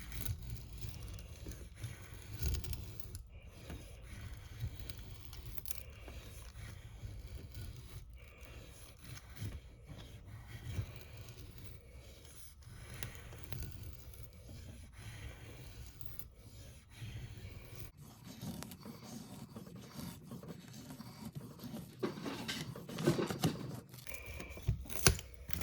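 Bark River Tope Recon knife blade carving fine shavings off wood: a string of irregular scraping strokes, with a few louder knocks near the end.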